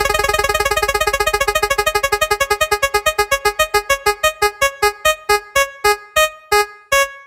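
Spin-wheel sound effect: a run of short, pitched electronic ticks, very fast at first and slowing steadily as the wheel winds down, to about two a second near the end.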